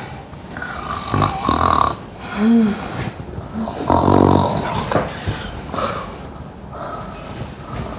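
A person snoring loudly in irregular, uneven snores, the loudest about four seconds in, with a brief rising-and-falling whistle-like tone between them.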